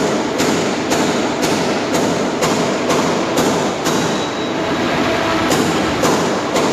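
Arc welding: a steady crackling hiss, with a sharp regular tick about twice a second.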